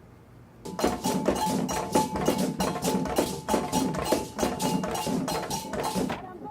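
Music with a fast percussive beat of sharp knocking strokes, about five a second, over a held note. It starts about a second in and cuts off suddenly shortly before the end.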